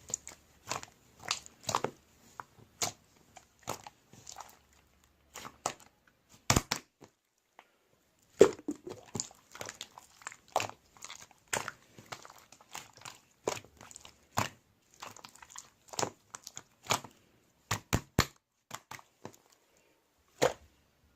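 Irregular sharp clicks and crunchy crackles, about one to three a second, with a short pause near the middle.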